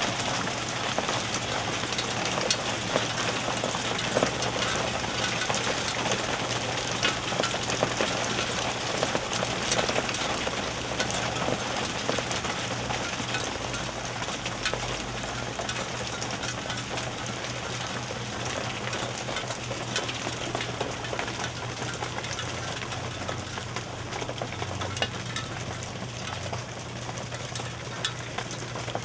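Hailstones pelting a backyard deck and yellow metal patio furniture: a dense hiss of impacts dotted with many sharp individual clicks, easing gradually toward the end.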